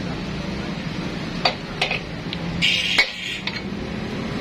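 A few sharp metal clinks and a short scrape from hand work at the base of a Yanmar single-cylinder diesel engine, over a steady low hum.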